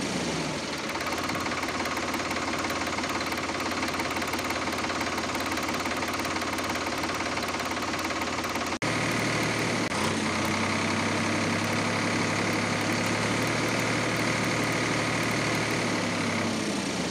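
Tractor engine running at a steady idle, a recorded engine sound laid over the toy footage. Its pitch falls just after the start and again near the end, and it cuts out for an instant about nine seconds in before carrying on.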